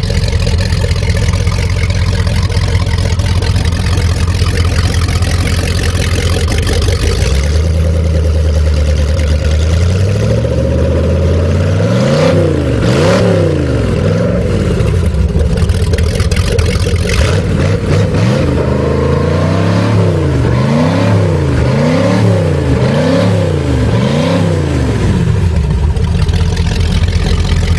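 Fuel-injected 5.7-litre Vortec V8 marine engine running on a test stand: it idles, then from about ten seconds in is revved up and down in a long run of quick blips, about a dozen in all, before settling back to a steady idle near the end.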